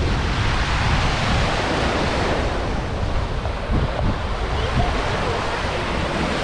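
Small surf waves washing up on a sandy beach, a steady rush of water, with wind rumbling on the microphone.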